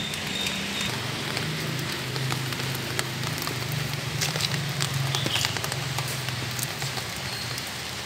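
Steady rain falling, with scattered drops ticking sharply, likely on an umbrella. A low steady hum sits underneath from about a second in until near the end.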